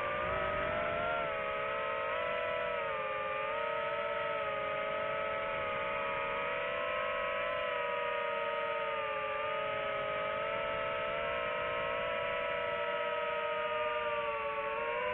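Multirotor drone's motors and propellers whining steadily as it flies, the pitch drifting slightly up and down.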